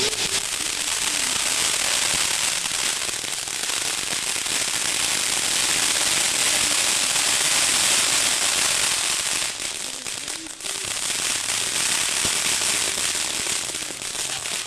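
Ground firework fountains (gerbs) spraying sparks with a steady, dense hiss and crackle. The sound dips briefly about ten seconds in as the fountains burn down, then picks up again.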